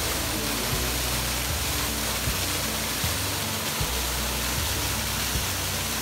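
Small waterfall pouring over rocks into a pool: a steady rush of water. Background music with a slow, even pulse plays under it.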